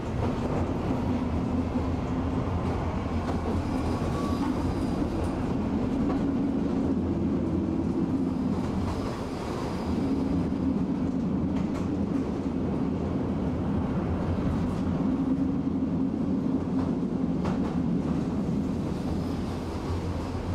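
Tram running along its rails, heard from on board: a steady low rumble of motors and wheels with a few faint clicks over the rail joints.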